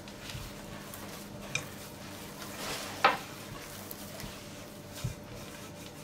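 Hand kneading a soft butter-and-flour dough in a glass mixing bowl: quiet squishing and rubbing, with three light knocks spread through it.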